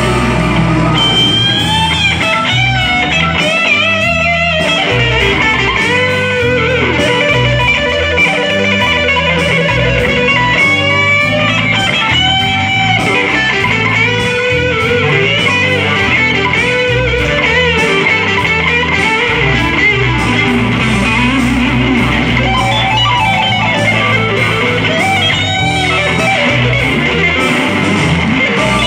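Two electric guitars jamming. The lead guitar solos with sustained notes that bend and waver in vibrato, broken by quick runs, while a second electric guitar accompanies with a steady low part beneath it.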